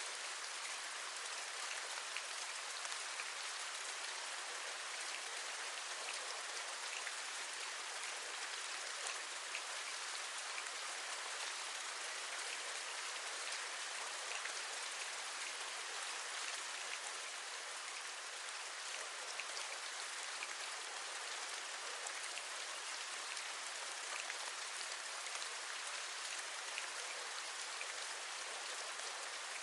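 Steady rain: an even hiss with many small drops ticking through it, without pause or change.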